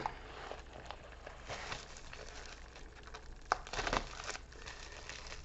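Plastic bubble mailer crinkling and rustling faintly as it is handled, with a sharp click about three and a half seconds in.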